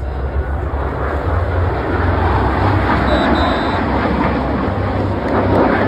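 Jet engine noise from a Blue Angels F/A-18 Super Hornet flying past, a loud, steady rumble that swells slightly in the second half.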